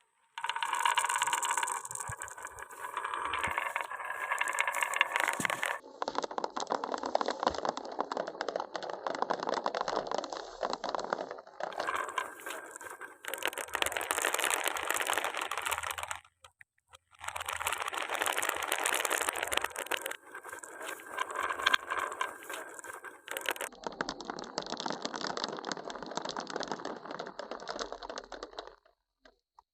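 Marbles rolling and clattering down a HABA wooden wave-slope marble run: a dense rattle of many small knocks of glass on wood. The sound changes abruptly at several cuts and drops out briefly a little past halfway.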